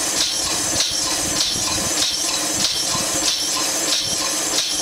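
Orr & Sembower vertical stationary steam engine running on compressed air: a steady rhythm of hissing exhaust puffs, about three every two seconds, with light knocks from the running gear. An air compressor drones under it.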